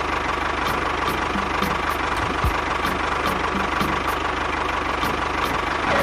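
Small motor running steadily, with a fast, regular ticking throughout.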